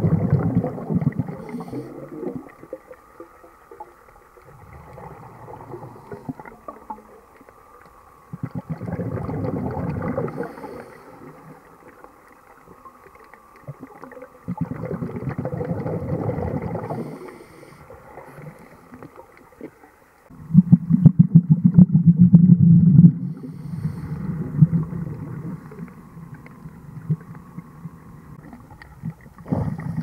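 Muffled underwater sound heard through a camera housing: low, gurgling rumbles that swell and fade about every five to six seconds, the loudest one about twenty seconds in.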